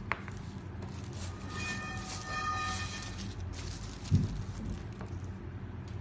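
Frosted plastic bag crinkling as a tablet-sized GPS unit is slid into it, then a low thump about four seconds in as the bagged unit is set down on the tabletop, over a steady low hum.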